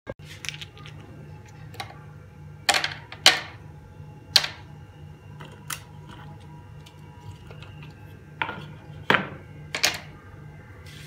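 Sharp clicks and knocks of a plastic blender jar being handled and filled with watermelon chunks, about seven in all and spread out irregularly, over a steady low hum. The blender motor is not running.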